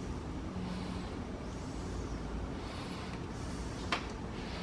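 Steady low rumbling background noise, with a single sharp click about four seconds in.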